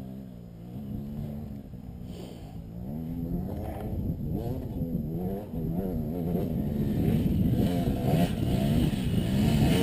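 Dirt bike engine revving up and down as the bike climbs a steep hill, growing steadily louder as it approaches.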